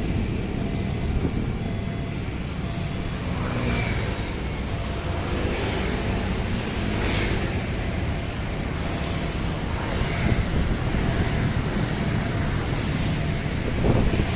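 Steady road traffic noise: a continuous low rumble of passing cars and motorbikes, getting a little louder near the end.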